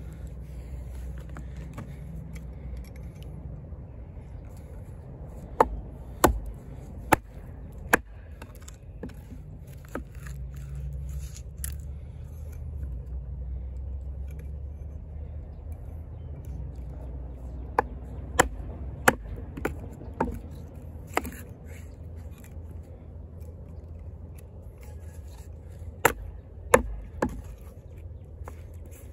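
Sharp knocks of a camp axe's steel bit tapping and biting into a small log on a chopping stump, coming in irregular groups of two to six, over a low steady rumble.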